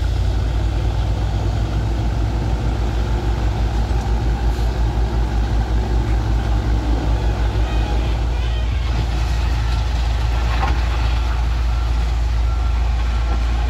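Diesel engine of a Komatsu backhoe loader running close by as the machine travels over the dirt road: a deep steady drone that pulses rhythmically, about three or four times a second, for several seconds in the middle. In the last few seconds a machine's back-up alarm beeps repeatedly.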